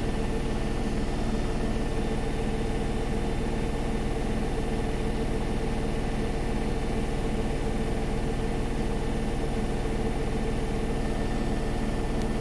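Samsung WW80R421HFX/LE front-loading washing machine running with a steady motor hum and a slight regular pulse, over a hiss.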